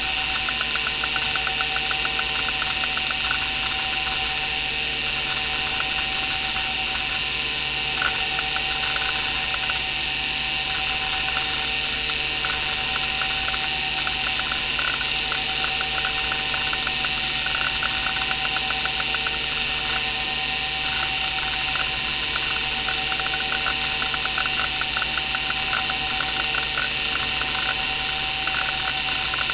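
Maxtor 8051A 41 MB hard drive running, with a steady spindle whine and bearing noise; the owner says the bearings aren't very good. Over this come stretches of fast, rattling head-seek clicks, broken by short pauses, as the drive is read while Windows 95 boots.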